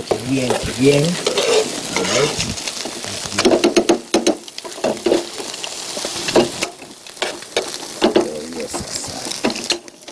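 Ratatouille of tomatoes, bell peppers and aubergine sizzling in a frying pan. A spoon stirs it and scrapes and clicks against the pan many times.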